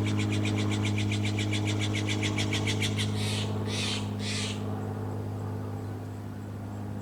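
A steady low engine-like hum. Over the first three seconds it carries a rapid high-pitched trill of about ten pulses a second, then three short raspy bursts about half a second apart.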